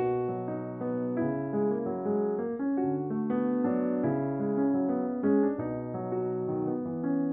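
Background music: an electric piano playing a flowing melody over chords, with notes changing several times a second.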